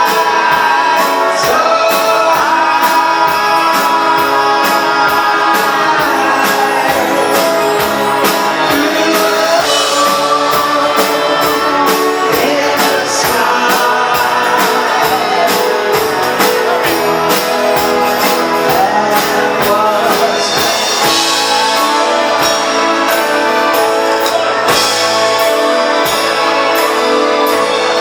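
A band playing a song with a singing voice, guitar and a steady beat.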